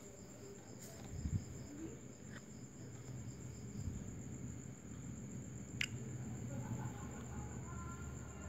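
Crickets trilling steadily, a continuous high, finely pulsing chirr, over a low background rumble, with one sharp click a little before six seconds in.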